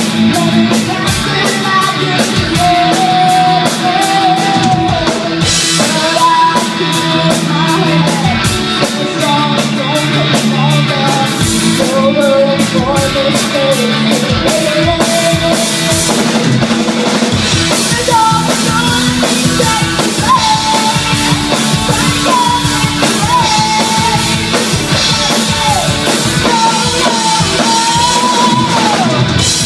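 A rock band playing live: two electric guitars, electric bass and a drum kit keeping a steady beat, with a lead vocal sung over them throughout.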